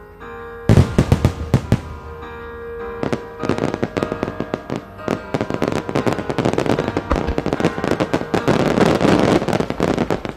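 Aerial firework shells bursting in a barrage. A cluster of loud bangs comes about a second in, then from about three seconds a dense, rapid run of bangs that builds toward the end.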